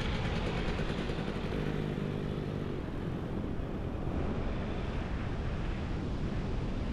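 Enduro dirt bike engine running as it rides across a sand beach, over steady rushing noise. Its engine note stands out more clearly about a second and a half in.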